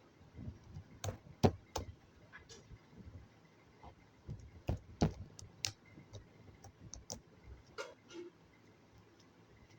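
Irregular soft clicks and sticky pops from glossy slime being pressed and poked by hand, with a couple of sharper clicks standing out.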